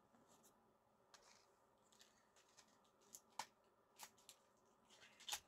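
Faint handling noises from a cardboard cake box being opened: scattered light clicks and rustles, the sharpest one near the end.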